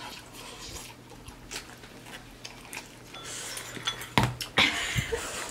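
Instant ramen being eaten from a bowl with a fork: quiet noodle slurps and small clicks of the fork against the bowl, with a few louder knocks about four seconds in.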